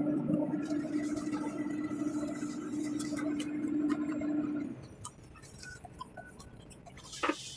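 A steady droning hum at one held pitch cuts off suddenly about two-thirds of the way in. After it come faint scattered clinks and a short knock near the end.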